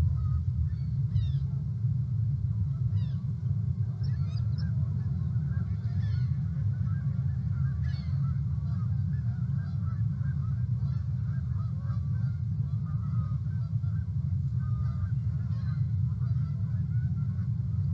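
A flock of geese honking and chattering, faint over a steady low rumble that is the loudest sound.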